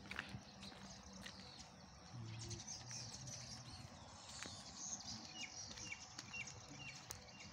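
Small birds chirping: scattered high calls, and in the second half a run of about six short, evenly spaced chirps, over a faint low steady hum.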